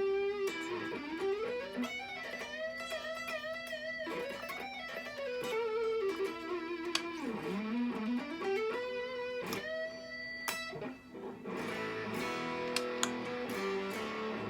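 Ibanez Mikro Destroyer electric guitar played through a Boss Katana 50 Mk II amp: a lead line of notes slid up into and held with vibrato, switching to repeated chords about eleven seconds in.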